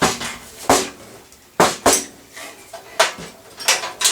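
Parts being handled in and against a metal PC case: about six sharp knocks and clicks at irregular intervals, with light clatter between them.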